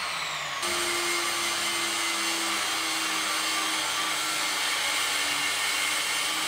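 Angle grinder cutting metal, running steadily under load with a high hiss and a steady whine. A falling whine of a disc slowing down ends about half a second in, where the cutting sound begins.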